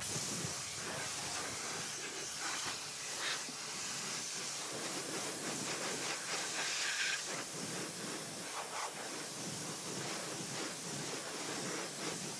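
Pressure washer jet spraying water against an alloy wheel and tyre, rinsing off foaming wheel cleaner: a steady hiss of spray.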